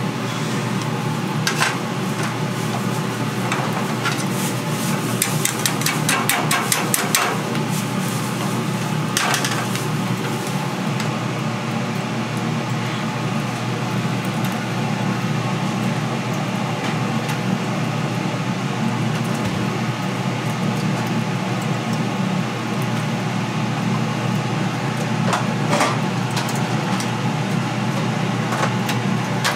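Scattered bursts of rapid knocking and clattering on a hard surface over a steady low hum.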